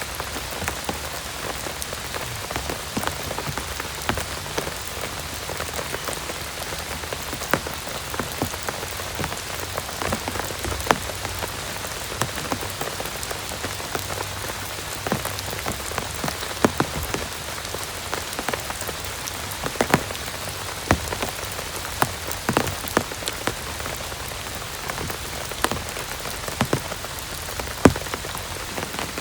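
Heavy rain falling steadily, with frequent sharp, irregular drop impacts standing out from the even hiss.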